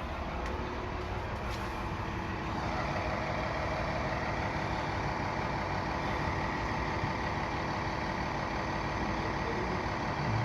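Fire truck engine idling steadily, a little louder from about two and a half seconds in.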